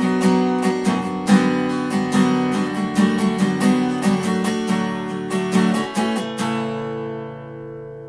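Acoustic guitar music with quickly plucked notes, ending about six and a half seconds in on a chord that rings on and slowly fades.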